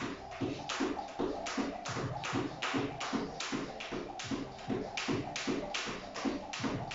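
Jump rope skipping on a tiled floor: the rope slapping the tiles and the soft landings of feet in trainers, in a steady rhythm of about three skips a second.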